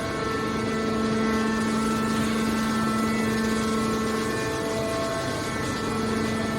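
Hydraulic scrap metal baler running: a steady mechanical drone with a constant whine from its power unit.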